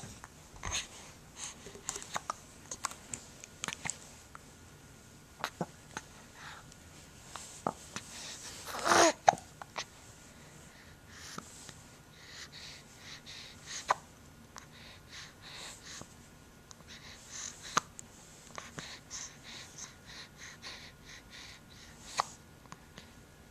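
Repeated hiccups: short, sharp hics every second or few seconds, with one louder, longer vocal sound about nine seconds in.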